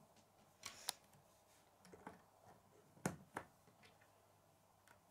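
K'nex plastic rods and connectors clicking as they are snapped together and set down on a wooden table: a few sharp clicks, the loudest two close together about three seconds in.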